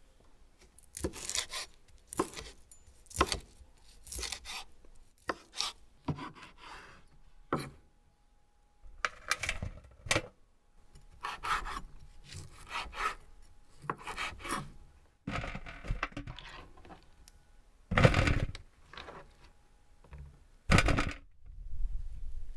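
Food-preparation handling: a knife cutting on a wooden board and grilled sausages handled on a metal tray, as a string of irregular separate strokes and scrapes, the loudest two near the end.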